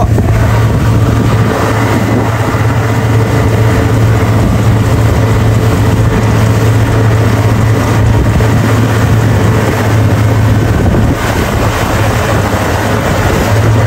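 Motorboat running at speed while towing a banana boat: a steady low engine drone under the rush of water and wind buffeting the microphone.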